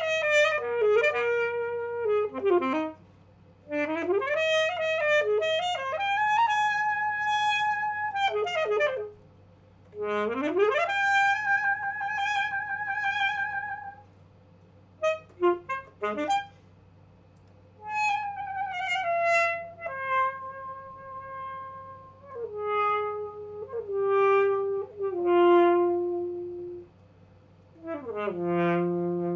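Alto saxophone playing alone: quick flurries of notes, long held high notes with vibrato, a fast upward glide about ten seconds in and a downward glide near the end, broken by short pauses.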